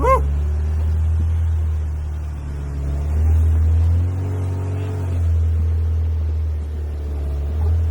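Jeep engine labouring as it crawls up a rocky trail, a heavy low rumble whose revs rise and fall a few times as the driver works the throttle. A brief high squeak right at the start.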